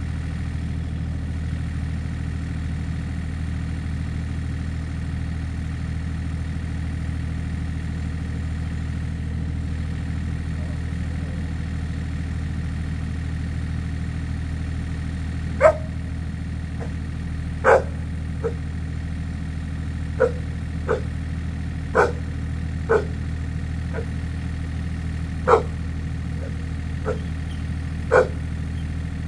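Mini excavator's diesel engine idling steadily. From about halfway, a dog barks about ten times, single barks spaced one to two seconds apart, and these are the loudest sounds.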